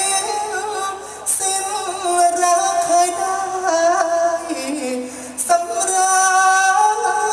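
Thai likay singer singing into a handheld microphone, amplified over a PA, holding long notes that bend and slide in pitch, with short breaths about a second in and near the middle.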